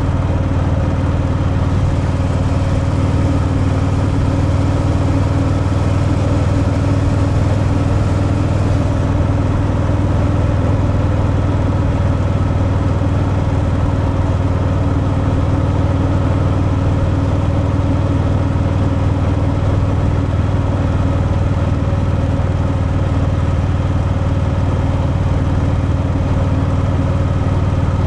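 Harley-Davidson Fat Boy's V-twin engine running through its stock exhaust while riding, holding a steady, even pitch.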